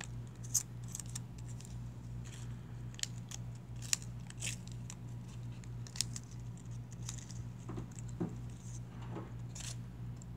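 Small plastic sewing-machine needle case being handled and opened by hand: scattered sharp clicks and light plastic rustles, several seconds apart, as a needle is taken out. A steady low hum runs underneath.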